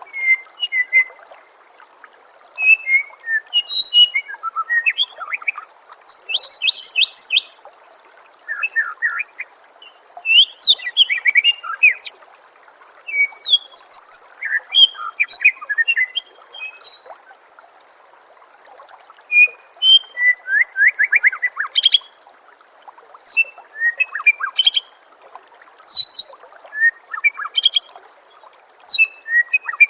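White-rumped shama (murai batu) singing: loud, varied whistled phrases and quick trills, delivered in bursts a few seconds long with brief pauses between them. A faint steady trickle of water sits underneath.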